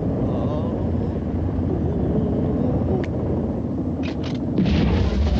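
A steady low rumble, with a sharp click about three seconds in and a few more clicks just after four seconds.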